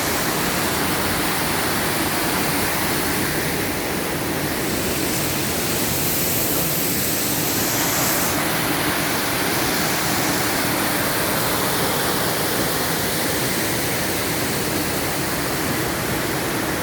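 Waterfall at low flow, water falling and splashing as a steady, even wash of noise with no break.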